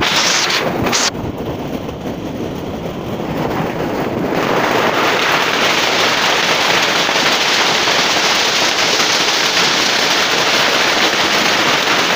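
Hailstorm: hailstones pelting corrugated tin roofs and the ground in a dense, steady clatter that grows louder about four seconds in.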